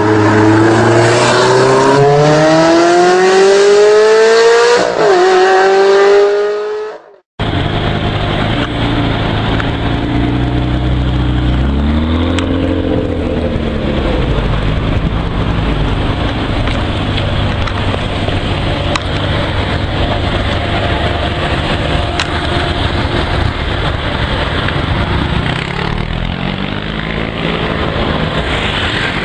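An engine accelerating hard, its pitch climbing with one gear change, cuts off suddenly. After that, a Ferrari 599 GTB's V12 idles steadily with two short throttle blips, about twelve seconds in and again near the end.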